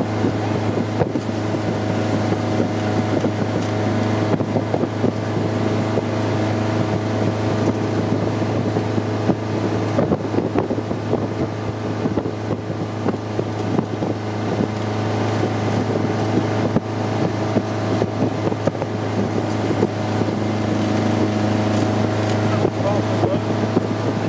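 Stingray 185LS sterndrive runabout's engine running steadily at towing speed. Water from the wake rushes beneath it, and wind hits the microphone.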